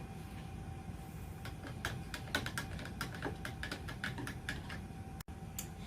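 A quick run of light, irregular clicks and taps, with a faint steady hum underneath.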